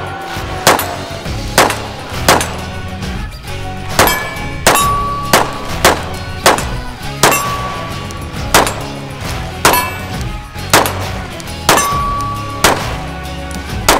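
A pistol firing steady, evenly paced shots, about one a second and some sixteen in all; several shots are followed by a short ringing tone. Background music plays underneath.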